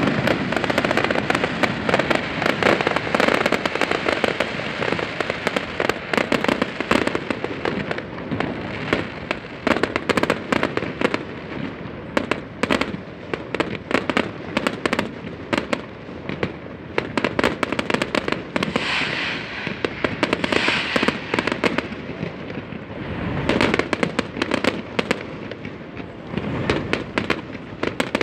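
Fireworks display: a dense, continuous run of aerial shell bursts, bangs and crackling. It is loudest at the start, eases off around the middle and picks up again in clusters later on.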